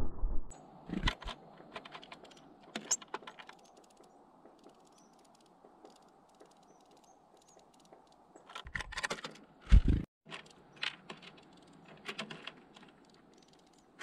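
Sharp, irregular clicks and taps of a tit pecking through sunflower seeds and hopping on a wooden bird feeder, close to the feeder's camera. There is a heavier thump about ten seconds in.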